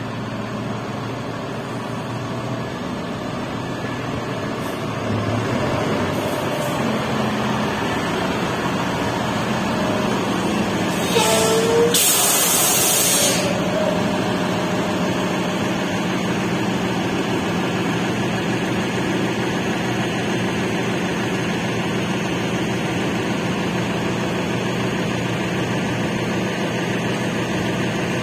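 Heavy diesel truck engine idling steadily, getting louder about five seconds in, with a loud hiss of released air lasting about two seconds near the middle.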